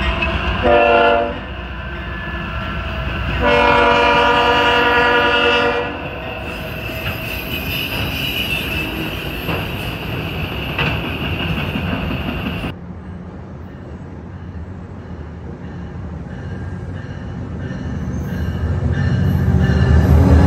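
CSX diesel freight locomotive sounding its air horn as it passes, a short blast then a long blast, followed by the rumble and clatter of freight cars rolling by with a high wheel squeal. About two-thirds through the sound cuts suddenly to a quieter rumble that grows louder near the end as another train comes in.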